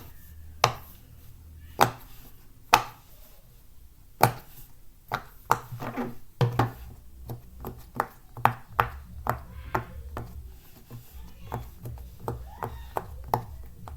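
Silicone pop-it fidget toy being pressed, its bubbles popping with sharp clicks: a few spaced pops at first, then quicker runs of several a second from about five seconds in.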